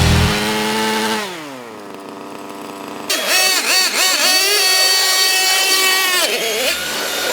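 Small two-stroke gas engine, likely the RC boat's 25cc petrol engine, running at high revs and winding down about a second in, then revved up and down again from about three seconds.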